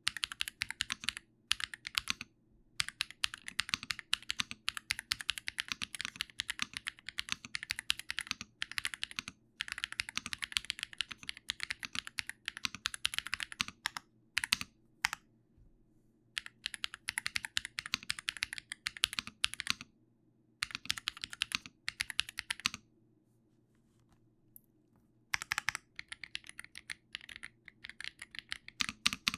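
Computer keyboard typed on in fast runs of key clicks, in bursts broken by short pauses and one longer pause about two thirds of the way through.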